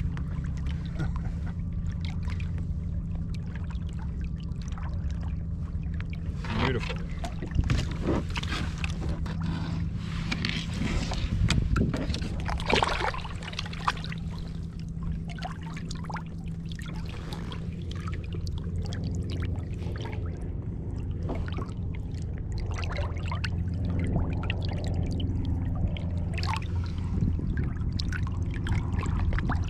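Water splashing and lapping against a kayak, with a run of sharp splashes and knocks from handling about a quarter of the way in, over a steady low rumble.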